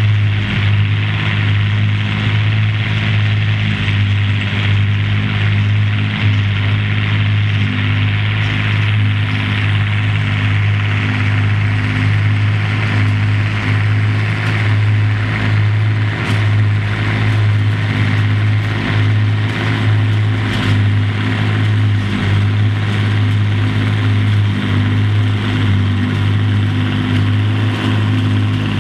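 Massey Ferguson 6290 tractor's six-cylinder diesel working hard at steady high revs, pulling a Pottinger Mex VI trailed forage harvester whose pick-up, chopper and blower whirr as it lifts and chops grass for silage. The pitch holds steady with no revving changes.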